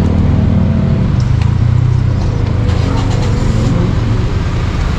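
Steady road traffic noise: vehicle engines running on the road, with a continuous low rumble.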